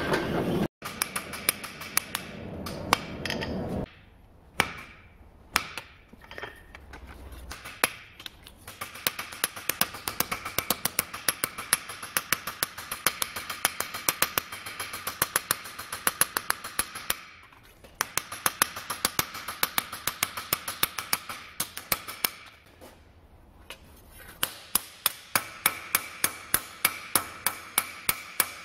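Hand hammer forging a red-hot Damascus steel kitchen knife blade on a steel anvil: runs of ringing blows at about three a second, with a few short pauses. A steady machine noise runs for the first few seconds and stops about four seconds in.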